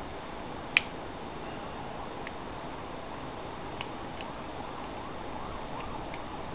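Lock picking in a serrated-pin MCM cylinder: a steel hook pick working the pin stack gives a few sharp, separate clicks, the loudest about a second in, over a steady low hiss.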